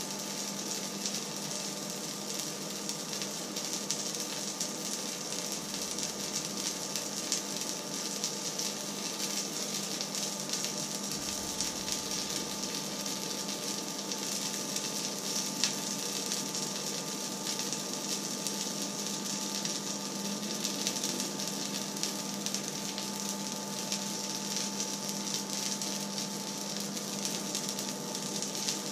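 Pan heating on an electric hob: a steady hiss with a low hum and a few faint, constant whines, unchanging throughout.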